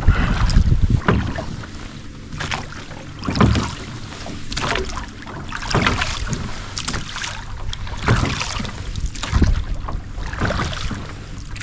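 A rowboat being rowed: the oars dip and pull through the water in a steady rhythm, a swish of water about once a second. There is a low wind rumble on the microphone, strongest at the start.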